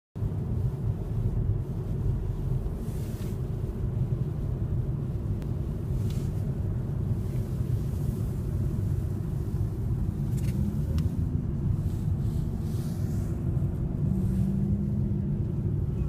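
Steady low rumble of a car's road and engine noise heard from inside the cabin while driving on a snow-covered highway, with a few brief faint hissing swishes.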